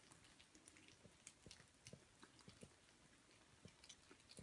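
Faint, irregular small clicks of kittens chewing and lapping food from their bowls.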